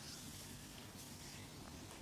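Faint soft swishes of hands rubbing and sliding over skin during a massage.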